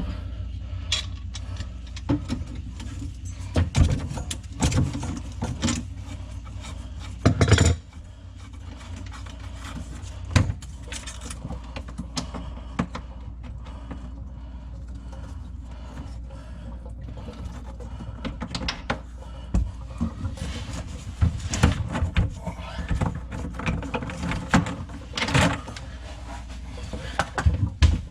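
Irregular knocks and clatter of hands and tools working on a kitchen sink drain, handling pipes and fittings, over a steady low hum.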